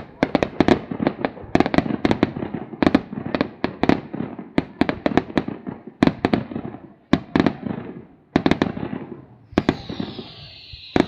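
Fireworks display: rapid, irregular bangs of bursting shells, many close together, each followed by a rolling echo, with a falling whistle near the end.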